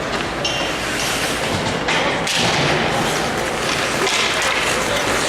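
Ice hockey game in a rink: a steady wash of arena noise broken by a few sharp thuds, about half a second and two seconds in, of the kind a puck or players make hitting the boards.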